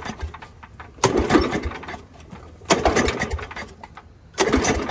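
Small engine of a ride-on lawn mower being pull-started on full choke: three pulls of the recoil starter, about a second and a half apart, each a short burst of cranking. The engine fails to catch.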